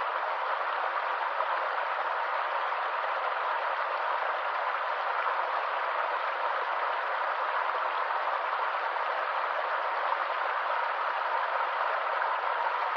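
Stream water running steadily, an even unbroken splashing hiss with no low rumble.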